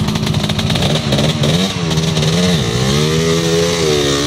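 Suzuki RM250 two-stroke motocross bike's engine revving as the bike passes close by. Its pitch rises and falls several times with the throttle, then holds near the end.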